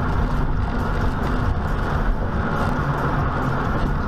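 Steady road and engine noise of a car cruising on a highway, heard from inside the cabin through a dashcam microphone.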